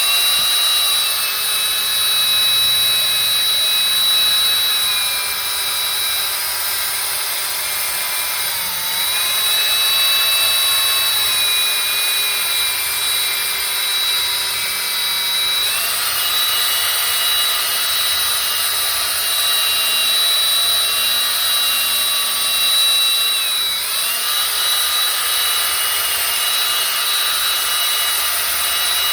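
Small handheld power tool buffing a guitar's lacquer finish: a steady motor whine that dips briefly in pitch twice and steps up in pitch about halfway through.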